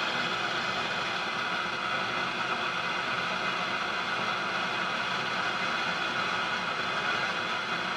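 A GE 212 vintage tube radio's speaker giving out a steady hiss of static with a faint hum underneath as the AM band is tuned. No antenna is connected, so no station comes through.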